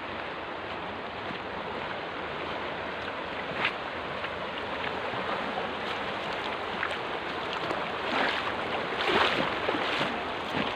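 Shallow river water rushing steadily along a plastic tarpaulin barrier, surging louder now and then, most of all about eight to nine seconds in.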